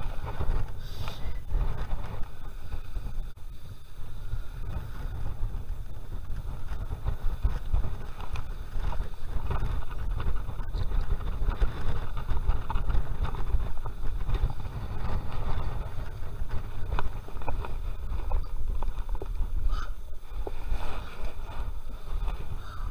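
Wind buffeting a chest-mounted action camera's microphone: a low rumble that rises and falls, with light rustling over it.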